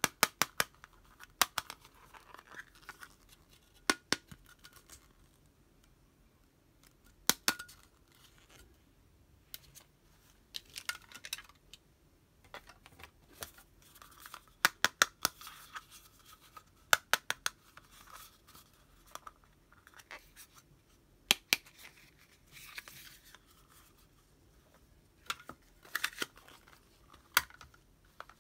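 Small plastic toy accessories being handled: sharp clicks and taps in small clusters every second or two, with light scraping and rustling between them.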